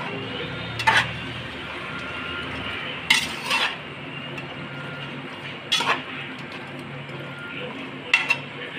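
A metal spoon or spatula stirring food in a cooking pan, knocking against the pan a handful of times, every couple of seconds, over a steady sizzle of frying.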